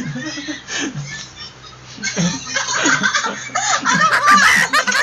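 A man laughing in short bursts, quieter at first, then louder and higher-pitched from about two seconds in.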